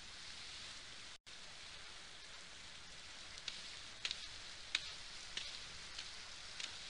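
Faint, steady high hiss like light rain, with a few soft ticks in the second half and a brief dropout about a second in.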